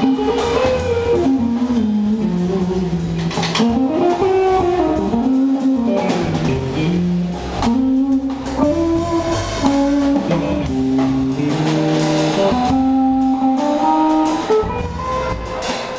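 Live jazz blues: an electric guitar plays a single-note solo line over upright bass and drum kit.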